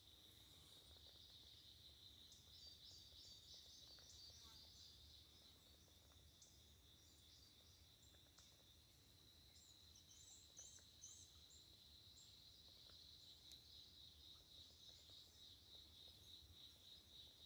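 Near silence: faint field ambience with a steady high-pitched insect drone and a few faint bird chirps.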